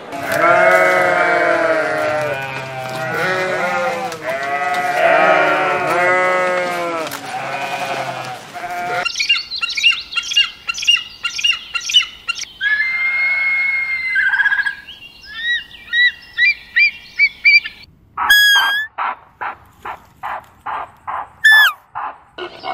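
A run of different animal calls. Many overlapping pitched calls come first for about nine seconds, then high chirps and whistles, and near the end quick high cries that slide downward between rapid short ticks.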